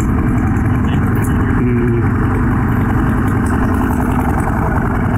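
Yamaha R15 V3's single-cylinder four-stroke engine running while the motorcycle is ridden, mostly buried under a steady, loud rush of wind and road noise.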